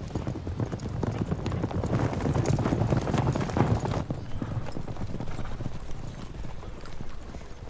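Horses' hooves clopping, with many irregular, overlapping strikes over a low rumble.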